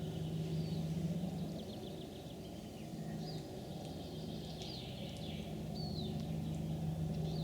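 Small birds chirping in the distance, short falling notes every second or so, over a low steady hum.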